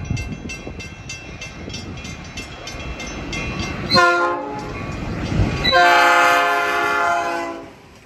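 Diesel locomotive passing close with its engine rumbling, sounding a horn of several notes at once: a short blast about four seconds in, then a longer blast from about six seconds in that dies away near the end.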